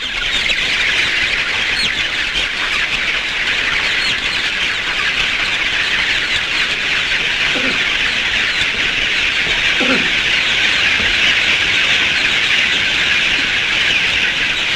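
A dense, steady chorus of many chickens in a crowded poultry house, high-pitched cheeping massed together, with a couple of lower calls about eight and ten seconds in.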